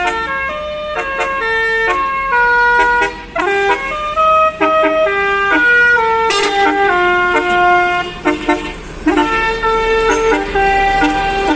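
Indonesian 'telolet' multi-tone bus horn (Basuri type) playing a fast melody: a run of loud, held pitched notes that step up and down in quick succession, with a couple of brief pauses.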